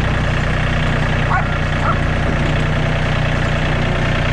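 Farm tractor engine idling steadily, a low even drone.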